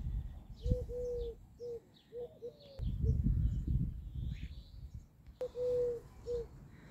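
A dove cooing: two phrases of low, even notes, each a longer coo followed by shorter ones, the first near the start and the second about two-thirds of the way through. Small birds chirp faintly above it, and bursts of low wind rumble sound on the microphone.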